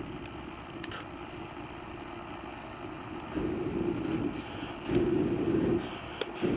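Breath blown in bursts into the air hole of a Ghillie Kettle's fire base, the fire drawing up the chimney with a deep roaring noise. The louder blows come in the second half. A couple of sharp crackles come from the burning sticks. The roaring is the sign that the fire has caught and the flame is going well.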